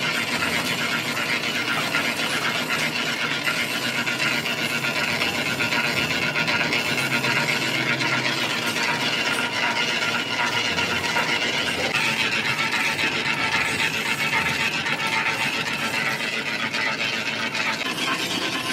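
Manual lathe's carbide tool bit cutting across the hub face of a large spoked cast gear blank: a steady, dense scraping rasp of the cut with the lathe running.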